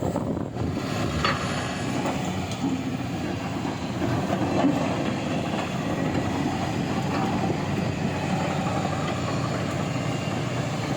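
Kobelco 380 excavator's diesel engine running steadily, with a few metallic clanks.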